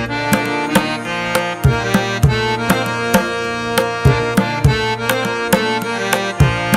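Background music: an instrumental track with a pitched melody over a steady drum beat.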